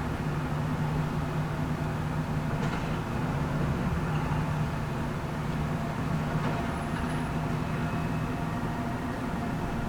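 Heavy excavator's diesel engine running steadily with a low hum, with a couple of faint knocks from the machine at work.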